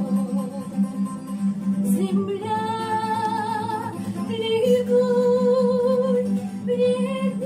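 A woman singing a slow song, holding long notes with vibrato, over acoustic guitar accompaniment.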